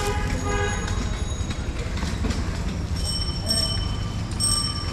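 Steady low rumble of passing vehicles, with a short pitched sound at the start and a few thin high-pitched tones a little past the middle.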